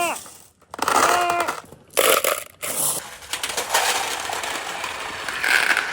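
Marbles rolling and clattering down a handmade wooden marble run, a dense rattle of many small hits. Near the start and again about a second in, a short high-pitched voice-like call sounds over it.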